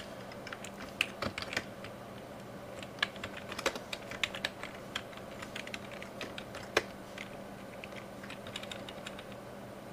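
Typing on a computer keyboard: irregular runs of keystrokes and single key presses with short pauses between them, a few keys struck harder than the rest.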